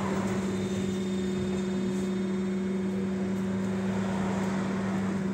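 Steady hum and whir of a trolleybus's onboard electrical equipment while it stands at a stop with its doors open, one constant low tone with a fainter overtone above it.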